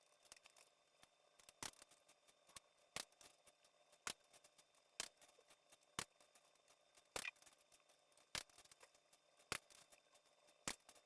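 Faint, sharp metallic clicks, about one a second, from a wrench tightening the cylinder head bolts of a Yamaha GP HO engine to their 41 ft-lb torque step.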